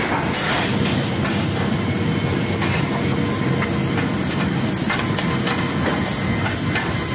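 Steady loud rumble and hiss of aircraft noise inside a C-17 Globemaster III cargo hold, with scattered metallic clicks and clinks of tie-down chains being handled.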